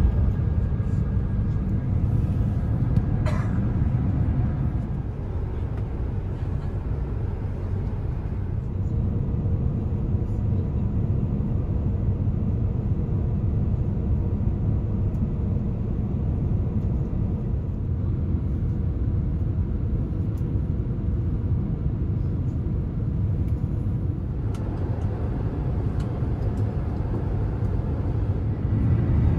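Steady low rumble inside an Airbus A350-900 cabin on descent, from the Rolls-Royce Trent XWB engines and airflow. The sound grows a little brighter near the end.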